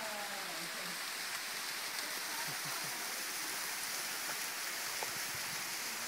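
Steady hiss of water from a small waterfall spilling down a rock cliff.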